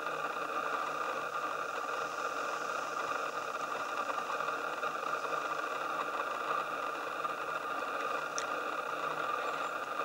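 A steady mechanical whir with several fixed tones and a faint pulsing low hum, like a motor running at idle. A single short high click about eight and a half seconds in.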